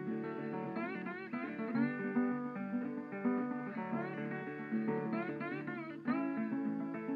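Background music: a plucked guitar melody with sliding, bending notes.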